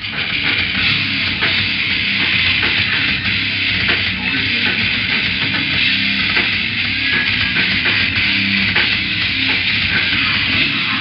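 Death metal band playing live, with distorted guitars and drums in a dense, steady wall of sound. The recording is tinny and lacks the top end.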